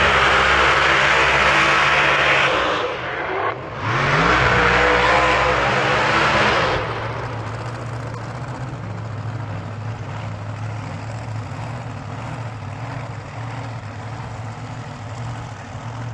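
A pair of open-wheel drag cars launching at full throttle. The engines are very loud for about seven seconds, with a short drop about three seconds in followed by a rising rev, then fade to a steady distant drone as the cars run down the track.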